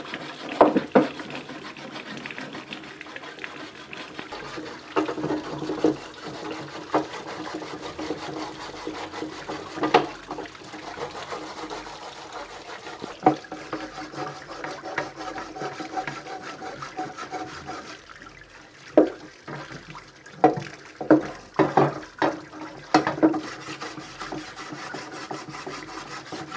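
Running water pouring from a hose while a piece of brick is scrubbed back and forth against a metal barbecue grill grate, rasping and scraping. A few sharp knocks and scrapes stand out, most of them in a cluster in the last third.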